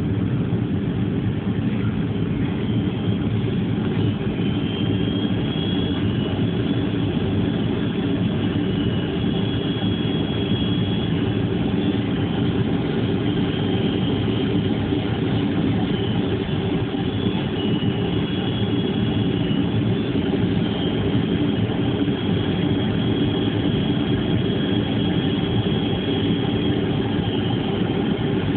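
Steady airliner engine drone, heavy and low, with a faint high whine that wavers slightly in pitch.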